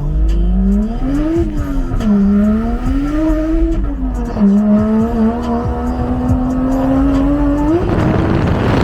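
A 1JZ straight-six drift car engine revving hard on track, its pitch climbing and dropping several times as the throttle is worked, then holding a steady high note. About eight seconds in the engine note gives way to a loud rushing noise.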